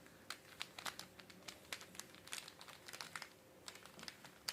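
Plastic puzzle cube being twisted by hand: quick, irregular light clicks and clacks as its layers turn.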